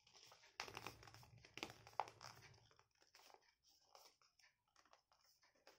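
Paper being folded and creased by hand: faint crinkles and rustles, busiest in the first half, with a sharper crackle about two seconds in.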